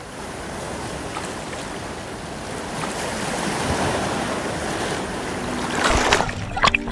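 Ocean waves surging and washing over rocks, with wind buffeting the microphone, growing steadily louder; about six seconds in comes a louder burst of rushing water.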